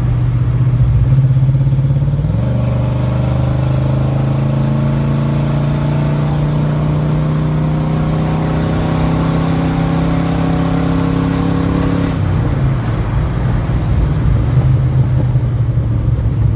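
AMC Matador's 360 V8, really loud, pulling on the road: its note steps up about two seconds in, climbs slowly under acceleration, then falls back about twelve seconds in.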